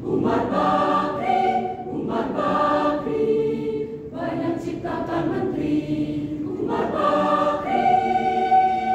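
Mixed choir of women's and men's voices singing in harmony, held chords in phrases with brief breaks between them.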